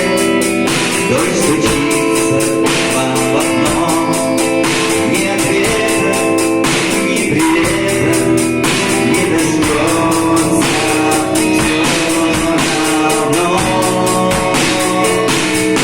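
Guitar song: guitar played in a steady, even strummed rhythm with a beat under it.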